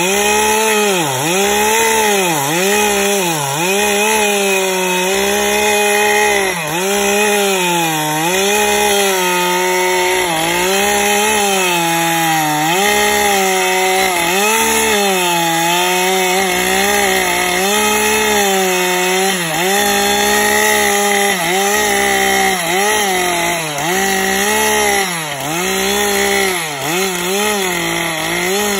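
Gas chainsaw ripping a large log lengthwise along the grain under full throttle. The engine note sags and recovers over and over as the bar bites into the cut, about once a second near the start and end, holding steadier through the middle.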